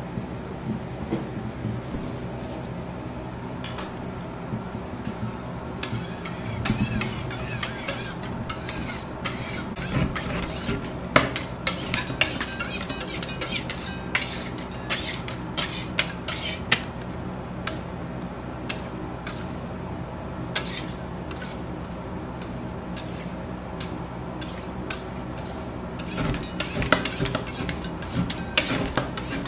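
Two steel spatulas chopping, tapping and scraping milk on a stainless steel ice cream roll cold plate as it freezes: quick, irregular metal clicks and scrapes, starting in earnest about six seconds in, over a steady low hum.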